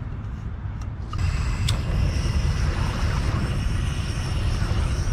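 A low, steady rumble of wind on the microphone. About a second in, the gas of a canister camping stove is turned on and hisses steadily, with a single sharp click shortly after as the burner is lit.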